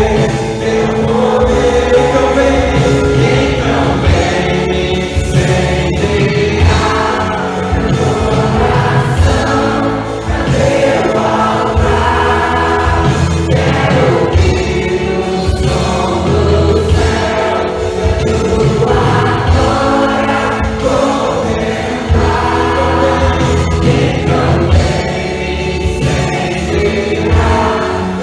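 A choir singing gospel music over a continuous instrumental backing with a steady bass.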